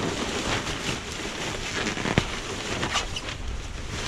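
A black plastic trash bag rustling and crinkling as gloved hands handle and shift it, with one sharp knock about two seconds in.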